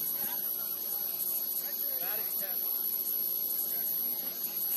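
Steady electrical hum with a high-pitched whine over it, and faint distant voices now and then.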